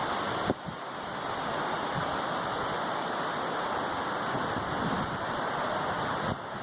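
Steady rush of strong wind, with a brief knock about half a second in.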